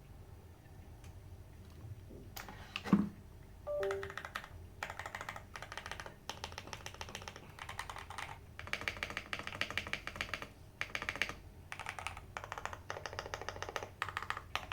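Typing on a custom gasket-mounted mechanical keyboard with lubed JWK 02 linear switches (POM housings) on an aluminium plate. From about five seconds in, keystrokes come in rapid runs separated by short pauses. These follow a quiet start, a single loud knock about three seconds in, and a few short tones.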